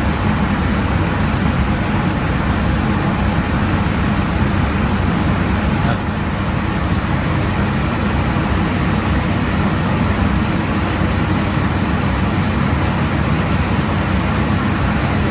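Steady in-flight cockpit noise of a jet aircraft at cruise altitude: an even rushing of airflow and engine sound, heaviest in the low end.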